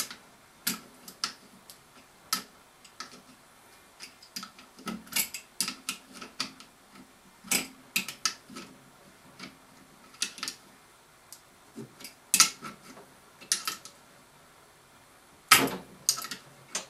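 Irregular sharp metallic clicks and taps of a hand tool tightening the mounting bolt on a furnace blower motor's belly-band mounting bracket, with a louder cluster of clicks near the end.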